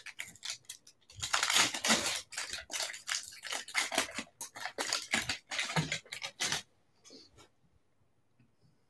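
Foil wrapper of a trading-card pack being torn open and crinkled by hand, a dense crackling rustle that stops about two-thirds of the way in.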